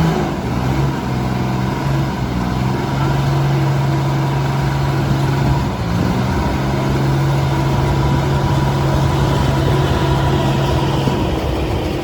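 Heavy construction machine's diesel engine running steadily at a constant speed, with a brief dip about six seconds in.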